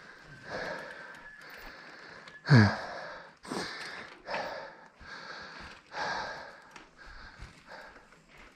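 A rider breathing hard and panting, with heavy exhales every second or so. The loudest, about two and a half seconds in, is a voiced groaning sigh that falls in pitch.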